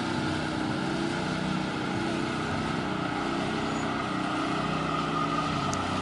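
Heavy machinery engine running steadily at an even speed, a constant low drone with no change in pitch.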